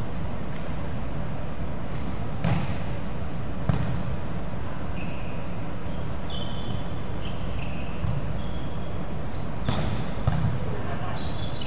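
A volleyball being struck and bouncing on a wooden gym floor: about five separate thumps spread out, with short high-pitched sneaker squeaks on the court in the middle, over a steady low hum of the hall.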